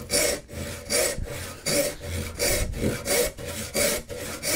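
Brass-backed tenon saw rip-sawing down into the end grain of a board to cut a tenon cheek, with short, even rasping strokes about two a second.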